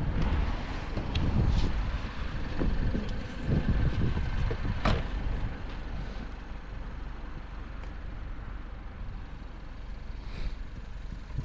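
Car engine running, louder and uneven for the first five seconds with a sharp click about five seconds in, then settling into a steadier, quieter run.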